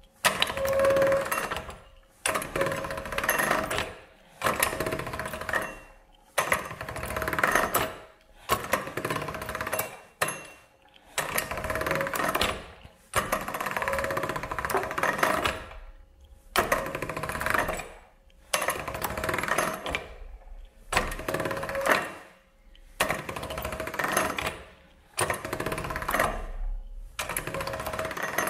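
Hand-cranked pasta machine rolling a sheet of polymer clay: each pass is a rattling clatter of gears and rollers lasting a second or two, about thirteen passes with short pauses between as the sheet is folded and fed back in, blending the clay colours together.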